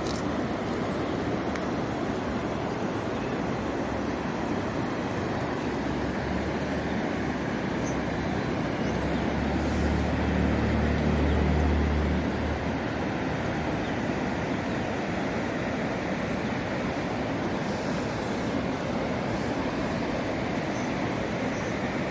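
Mountain river water rushing steadily. A low rumble swells in about nine seconds in and fades about three seconds later.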